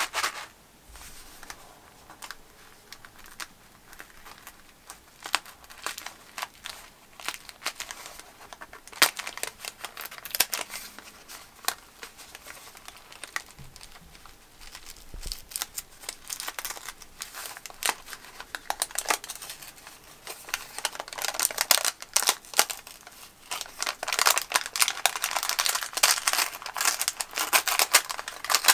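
A 1960 Kellogg's Rice Krispies individual-serving cardboard box being torn open along its perforations, with its wax-paper lining crinkling: a run of sharp tears, crackles and rustles that comes thick and fast in the last third.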